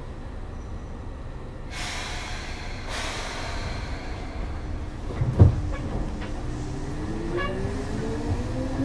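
Seibu 2000 series electric train standing at a station, then pulling away: two bursts of compressed-air hiss, a jolt about five seconds in, then the traction motors' whine rising steadily in pitch as the train accelerates.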